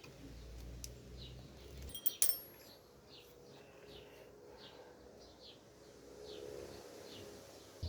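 Faint, quick chirps repeating every fraction of a second, like small birds, with a sharp metallic clink that rings briefly about two seconds in.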